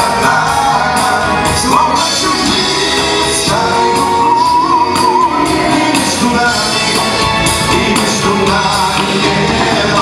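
Live pop-rock band playing: electric guitars, bass guitar, keyboard and drums, in a large hall. Near the middle a melody line holds a long note that wavers in pitch.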